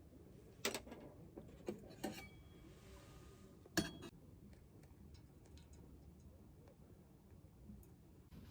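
A few light knocks and clinks of hard objects, the loudest about four seconds in, with a brief ring after it.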